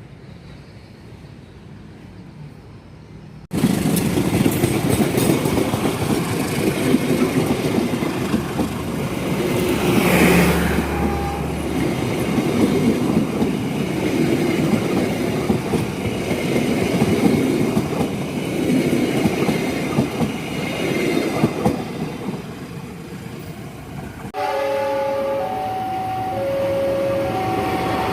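Train passing close by: a loud, steady rumble of wheels on rails with clicking, which starts suddenly a few seconds in. Near the end it gives way to a different, steadier sound with short tones repeating at two alternating pitches.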